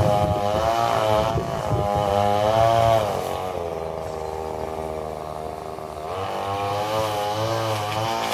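Motorized weed cutter (brush cutter) engine running loudly, its pitch wavering up and down as it works. It eases off about three seconds in and picks up again about six seconds in.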